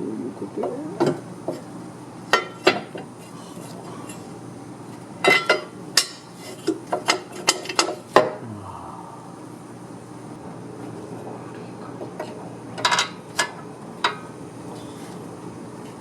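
Metal hand tools clinking and knocking against metal: irregular sharp clinks in clusters, with a steady low background between them.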